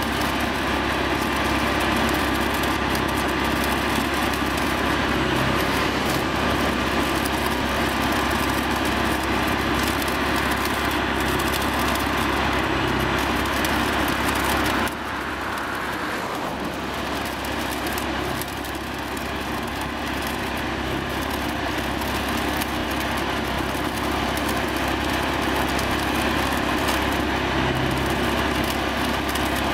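Flash-butt rail welding under way on a Plasser & Theurer APT 1500 RA welding machine: a dense, steady crackling from the welding head as the rail ends are flashed, over the steady running of the machine's engine. The sound drops a little about halfway through and then builds again.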